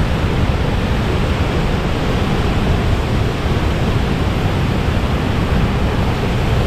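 Steady rush of a waterfall: a dense, even noise, heaviest at the low end.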